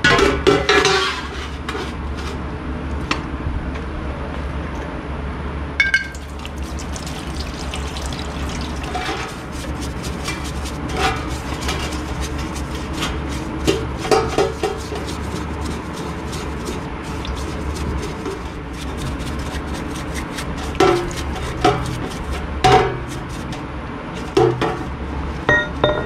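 Degreasing an aluminum hammer in a stainless steel pan of cleaning liquid: a brush scrubbing and splashing, with the metal hammer now and then clinking against the pan several times. A steady low hum runs underneath.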